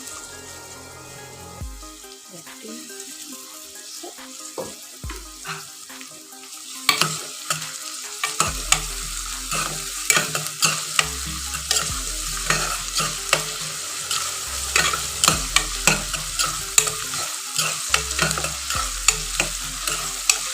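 Onions and ginger-garlic paste frying in mustard oil in a kadhai, sizzling while a spatula stirs and scrapes against the pan. The sizzle grows much louder about seven seconds in, with frequent sharp strokes of the spatula.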